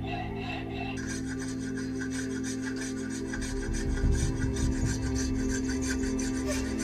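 Small hand plane shaving a length of wood, in quick repeated strokes that start about a second in, each one a dry scrape.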